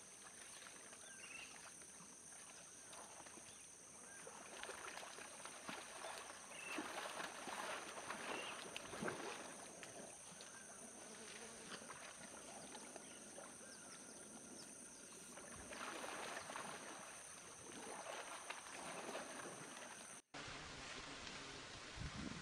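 Faint splashing and sloshing of shallow water as elephant calves play and wallow, under a steady high insect drone. The drone cuts off suddenly near the end.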